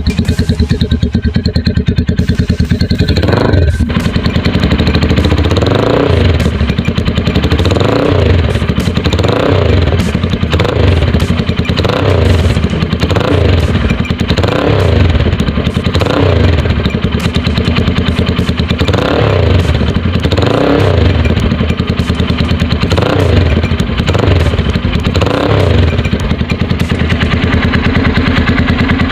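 Motorstar Xplorer Z200X single-cylinder motorcycle engine breathing through an aftermarket Akrapovic slip-on exhaust. It idles, then is given about fifteen quick throttle blips, each rev rising and dropping back, before settling to idle again near the end. The exhaust note is bigger than the stock muffler's.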